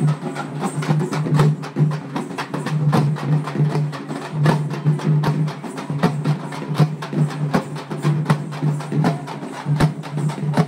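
Hand-held frame drums (dappu) beaten with sticks in a fast, dense rhythm of sharp strokes, over a steady low hum.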